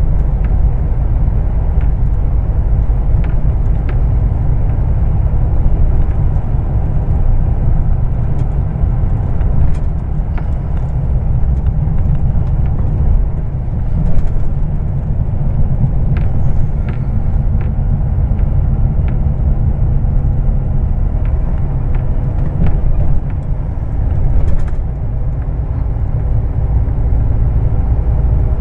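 Heavy diesel truck driving at a steady speed, heard from inside the cab: a constant low engine and tyre rumble with a faint engine hum, and a few light clicks from the cab.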